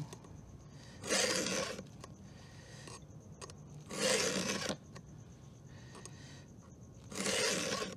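Round file in a filing guide being pushed forward across a saw chain's cutter, three rasping strokes of under a second each, about three seconds apart. It is sharpening the cutter.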